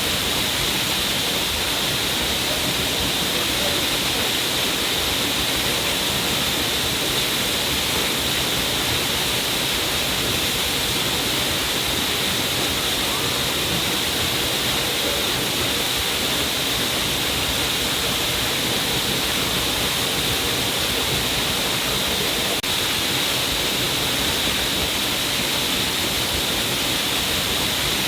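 A small stream of water falling down a cliff face, making a steady, even rush of splashing water that does not change.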